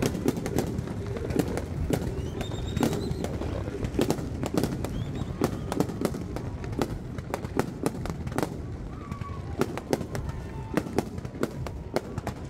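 Fireworks display: a rapid, irregular string of sharp bangs and crackles, several a second, over a steady low rumble.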